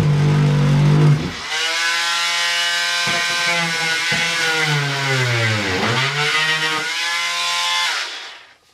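Craftsman oscillating multi-tool cutting a small hole through drywall: a steady buzzing whine whose pitch sags each time the blade bites and then recovers. It stops near the end.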